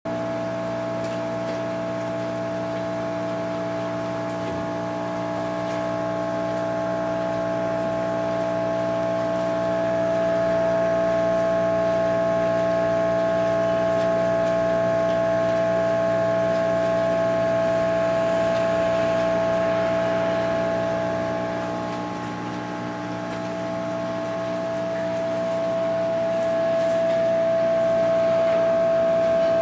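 Air blower supplying a fine bubble diffuser, running steadily with a constant multi-tone hum; the level dips briefly about three quarters of the way through.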